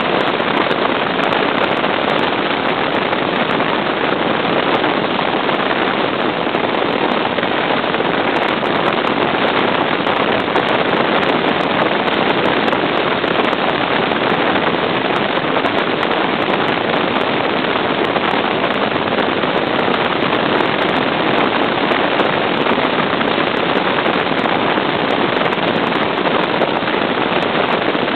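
Steady, loud rush of wind buffeting the microphone on the bow of a bass boat running at speed, mixed with the hiss of the hull over the water.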